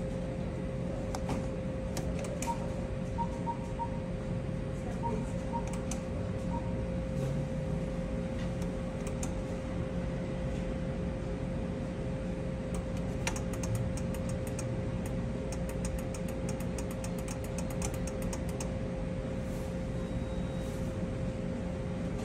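Electronic slot-style game machine playing its bonus spins: bursts of quick light clicking and a few short beeps over a steady electrical hum with a held tone.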